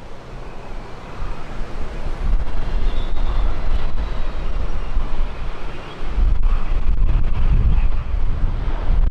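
Jet airliner's engines rumbling as it passes, with wind buffeting the microphone; the rumble grows louder about two seconds in and again about six seconds in.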